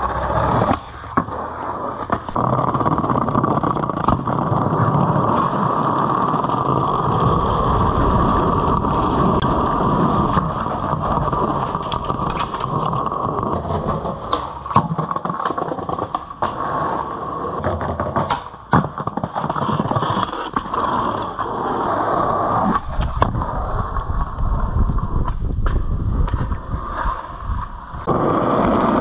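Skateboard wheels rolling on concrete and asphalt, with sharp clacks of tail pops, landings and board hits on ledges scattered through.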